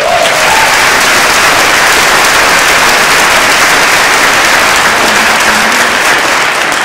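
A large audience applauding, starting suddenly and loudly, holding steady, then dying away near the end.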